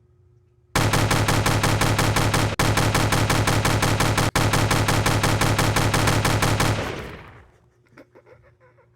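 Machine-gun sound effect: a long, loud, rapid and even stream of shots, with two split-second breaks, fading out a couple of seconds before the end, then only faint small ticks.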